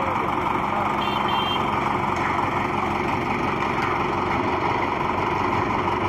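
Concrete mixer running steadily, its engine and rotating drum making a constant loud hum and rumble as concrete slides down the discharge chute. A brief high beep sounds about a second in.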